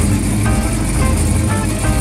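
Engine of a pro street 1955 Chevrolet two-door running as the car drives slowly past, with music playing over it throughout.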